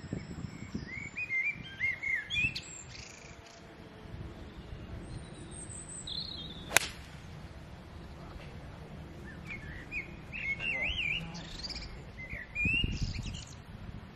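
A single sharp crack of a golf club striking a ball off the tee about halfway through, the loudest sound. Songbirds chirp before and after it.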